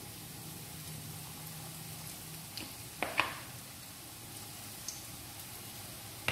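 Pakora batter frying in hot oil in a kadhai, a steady soft sizzle, with two sharp clicks about three seconds in.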